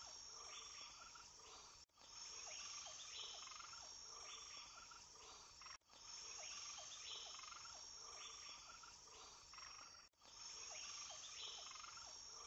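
Near silence: a faint background track that repeats about every four seconds, cut by short dropouts, with a thin high hiss and a few faint chirp-like ticks.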